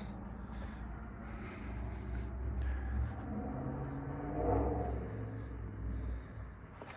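Low, steady rumble of wind buffeting a phone's microphone, with a few faint clicks and rustles.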